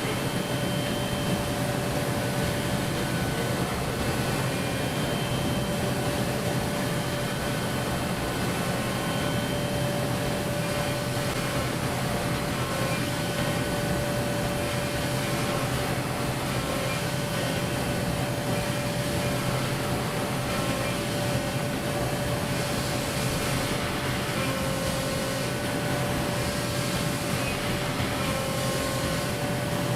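5-axis CNC machining centre milling aluminium at high speed: a constant rushing machine noise with a steady pitched whine from the cutting, and fainter higher tones coming and going.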